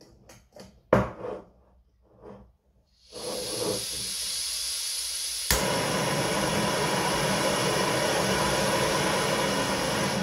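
Gas camping stove on a screw-on canister: a few knocks and clicks as it is handled, then gas hissing from the opened valve about three seconds in. A sharp click from the built-in piezo igniter about five and a half seconds in, and the burner lights first time and burns with a steady, louder rush until near the end.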